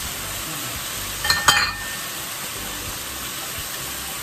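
Garlic and chicken pieces sizzling in oil in a nonstick frying pan as they are stirred with wooden chopsticks. About a second and a half in there are two sharp clinks with a brief ring.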